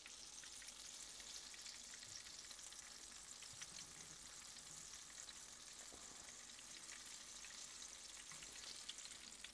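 Apple fritters frying in shallow oil in a skillet: a faint, steady sizzle with fine crackling.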